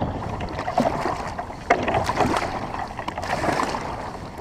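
Water splashing and lapping around a sea kayak, with a few brief sharp splashes or knocks against the hull.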